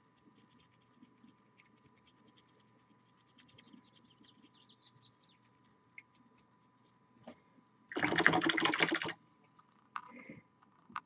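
Faint, quick scratching strokes of a paintbrush working paint onto a miniature. About eight seconds in comes a much louder scratchy rustle lasting about a second.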